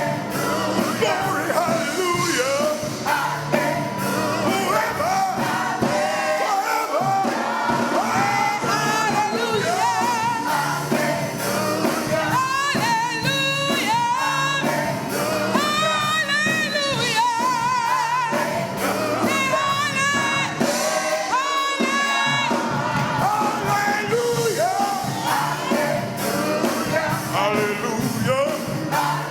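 Church gospel music: singing with heavy vibrato over instrumental accompaniment with a steady beat.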